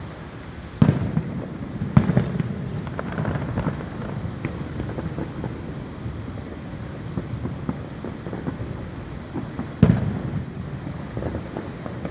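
Aerial fireworks shells bursting: sharp booms about a second in, again at two seconds and near the end, with smaller crackling pops and a low rumble between them.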